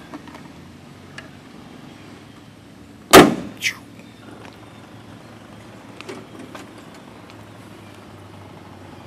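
The small driver's door of a Jaguar D-Type being shut: one loud slam about three seconds in, with a smaller knock just after, then a few faint clicks from the cockpit.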